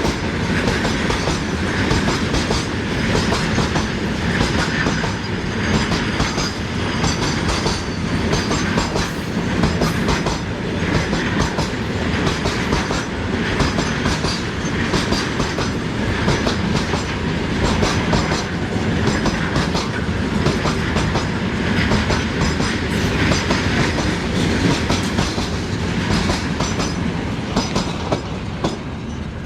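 Train running steadily, its wheels clicking and clattering over the rail joints.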